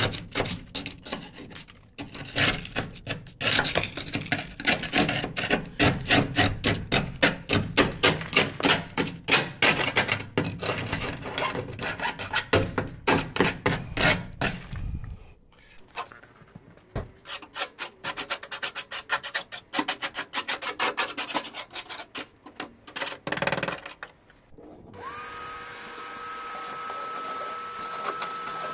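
Rhythmic hand scraping, about three strokes a second, then slower, lighter strokes. Near the end a steady machine hum with a high whine comes in.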